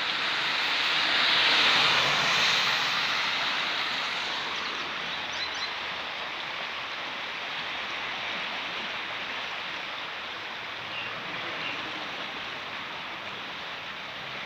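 Steady rushing of a flooded river's water, briefly louder about two seconds in.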